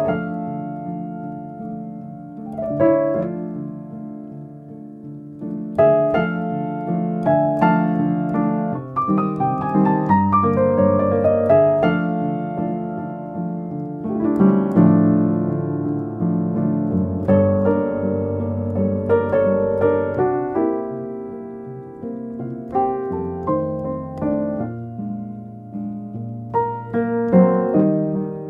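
Piano music: phrases of single notes and chords that ring and fade.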